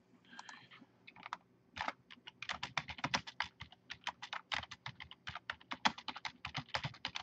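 Typing on a computer keyboard: a few scattered keystrokes, then a fast, continuous run of keystrokes from about two seconds in.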